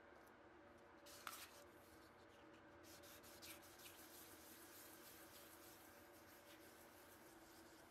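Faint scratchy rubbing of a metal challenge coin being wet-sanded by hand on a sheet of fine sandpaper, in short, uneven strokes, to polish its face. A light tap about a second in as the coin is set down on the paper.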